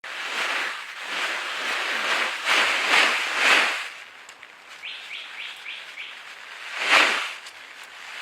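Bird sounds: a series of broad, rustling swishes, then a quick run of five short, falling chirps about five seconds in, then another swish.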